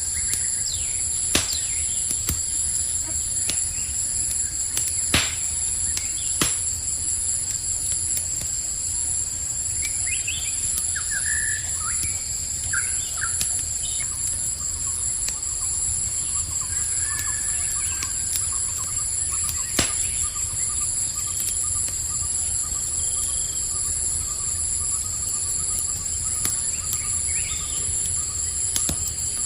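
Campfire crackling with a few sharp pops, over a steady high-pitched chorus of crickets. A few short bird-like chirps come in around the middle.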